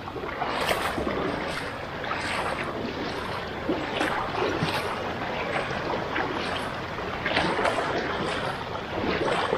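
Water sloshing and splashing as legs wade through a river, in irregular surges about one or two a second.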